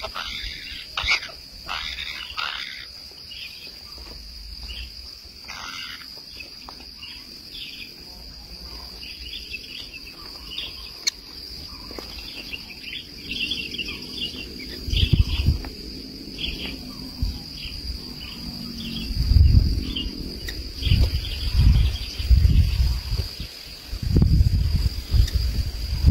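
Steady high-pitched insect drone with many short bird chirps over it. From about halfway through, loud low rumbles come in bursts.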